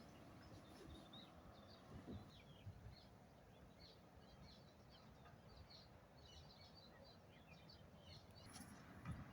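Faint chirping of small birds, many short calls one after another, over a low background rumble.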